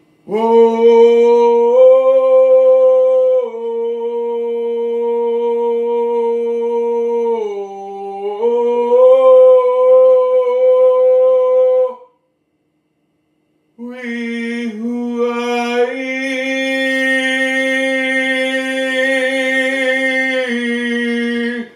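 A voice holding long, steady notes, stepping between a few pitches, with a break of about two seconds midway.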